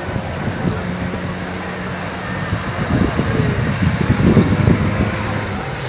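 Jet ski engine running at speed: a steady drone that turns louder and rougher between about three and five seconds in.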